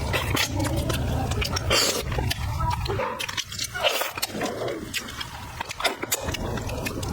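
Close-miked eating sounds: chewing with wet smacking and clicking mouth noises, over a steady low hum that drops away in the middle.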